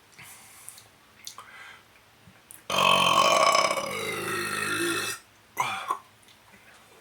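A long, loud burp of about two and a half seconds, with shorter, softer throat or mouth sounds before and after it.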